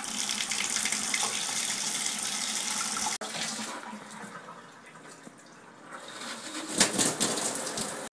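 Bath tap running water into a tub. It drops suddenly about three seconds in, stays quieter for a while, then swells again near the end before cutting off.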